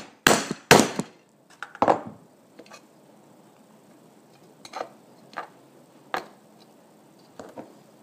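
Metal clinks and knocks from a grommet setting tool and a Mason jar lid on a wooden block: four sharp strikes in the first two seconds, then a few lighter clicks.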